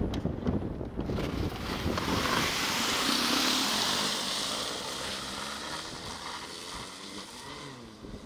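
Taiga Nomad electric snowmobile running through wet, heavy snow: a broad hiss from the track and snow builds, peaks and fades away. A faint, wavering electric-drive whine is heard near the end, with wind buffeting the microphone at the start.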